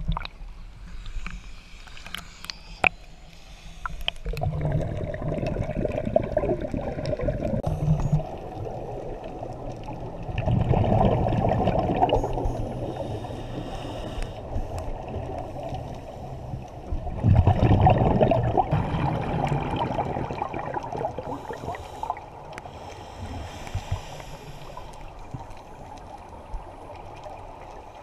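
Scuba divers' exhaled breath bubbling out of their regulators, heard muffled underwater through the camera housing. It comes in three surges of a few seconds each, over a faint steady low hum.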